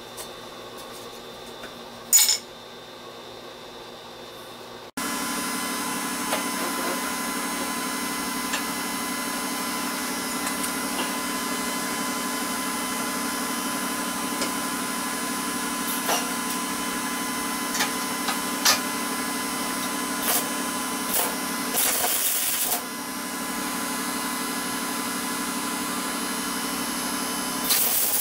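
A single metal clink about two seconds in. Then a steady electrical hum, broken near 22 seconds and again at the end by short crackling bursts of arc welding as tack welds are laid on the steel core support.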